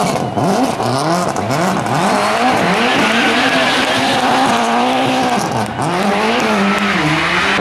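Subaru Impreza rally car's turbocharged flat-four engine revving up and down several times, then held high for a couple of seconds, dropping once near the end and picking up again, as the car drifts in circles with its tyres squealing.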